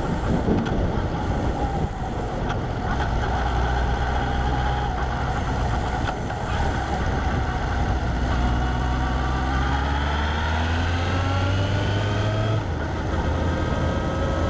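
Vehicle engine and road noise heard from a camera mounted outside the vehicle. From just past the middle the engine note rises steadily as it accelerates, then breaks off briefly near the end.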